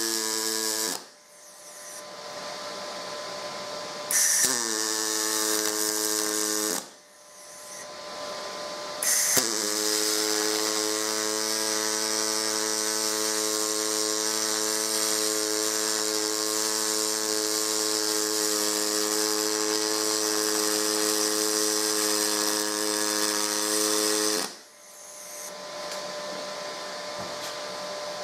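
Pulse MIG arc from an HTP ProPulse 200 brazing stainless steel with silicon bronze wire: a steady, high-pitched, pulsing buzz. There are three beads: one ends about a second in, a short one runs from about four to seven seconds, and a long one of about fifteen seconds starts about nine seconds in. Each opens with a crackle as the arc strikes and stops abruptly.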